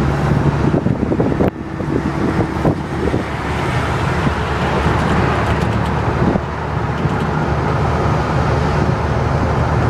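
Road and traffic noise heard from the open bed of a moving pickup truck, with wind rushing past the microphone and a vehicle engine running steadily underneath.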